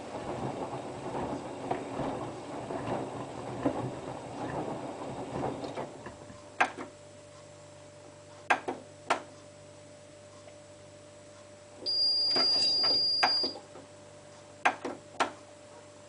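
Hotpoint Ultima WT960 washing machine tumbling its laundry through foamy suds until the drum stops about six seconds in. After that the machine gives a faint steady hum, several sharp clicks, and a high beep lasting about a second and a half.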